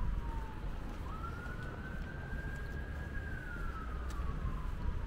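Emergency vehicle siren on a slow wail. A single tone rises about a second in, holds high for about two seconds, then slowly falls. Under it runs a steady low rumble.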